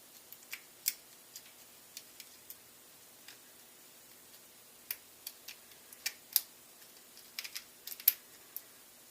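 Lock pick and tension wrench single-pin picking a Master Lock padlock: irregular small metallic clicks and ticks, a few sharper ones about a second in and in the last few seconds.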